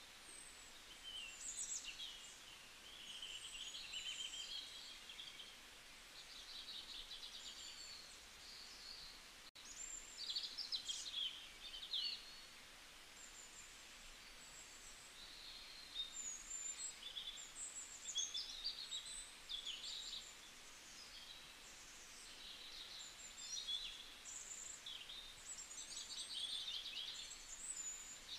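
Small birds chirping and twittering in quick high trills and short rising and falling calls, over a faint steady background hiss.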